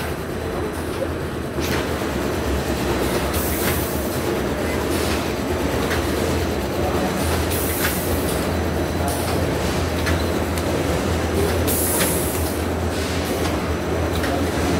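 Flexographic four-colour sack printing machine running: a steady low hum and rolling rumble from its rollers and drive, with a few brief spells of hiss and light clicks.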